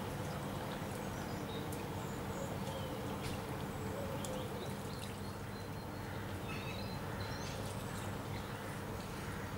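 Steady outdoor background hum with faint, brief high bird chirps now and then.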